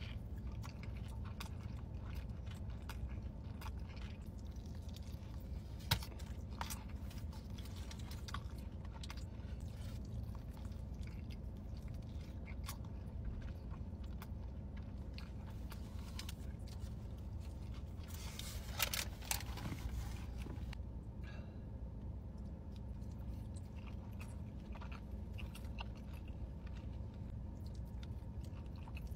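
Close-up eating sounds: big bites into a sauce-covered burger and open chewing, with scattered wet mouth clicks; near the end, forkfuls of loaded fries. A steady low hum runs underneath.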